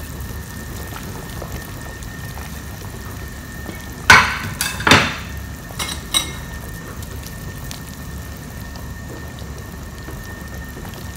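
A pot of fish soup simmering on the stove with a steady bubbling hiss. A few sharp metal knocks of a utensil against the pot, the loudest two about four and five seconds in, with two lighter ones around six seconds.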